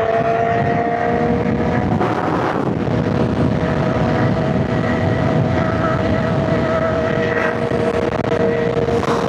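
Inline-four sportbike engine running at a steady speed while riding, with wind rushing over the helmet microphone.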